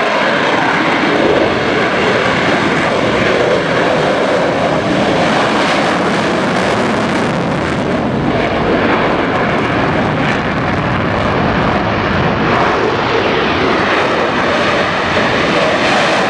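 Military aircraft engine noise from an airshow flypast, loud and continuous with no break.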